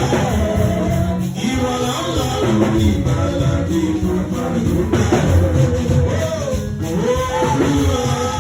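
Church choir singing a praise song with band accompaniment, continuous and loud.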